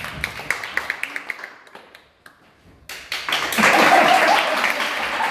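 Applause from audience and cast. The clapping thins and fades to a brief lull about two seconds in, then breaks out again, louder and denser.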